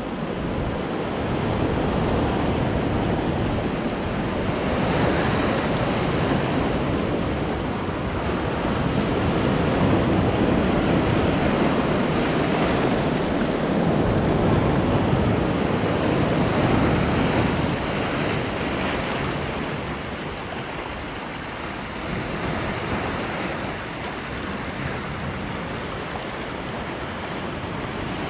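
Sea waves washing and breaking over low rocks, the surf swelling and easing every few seconds.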